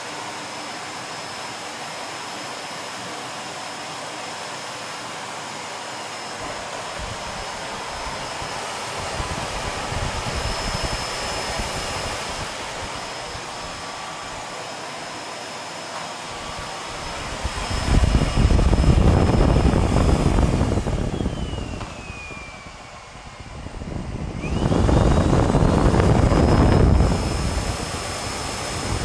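Siemens Syncropower vacuum cleaner running with a steady high motor whine. About two-thirds in, the whine drops in pitch as the motor slows down, then climbs back as it speeds up again. Loud low rushing air noise comes and goes in the later part.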